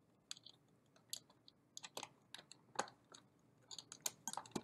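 Small plastic wire connectors of the locking cable being fiddled with and pushed into the header on an AutoSlide door opener's control board: faint, irregular clicks and ticks from the plastic plugs and wires, a sharper click about three seconds in and another just before the end.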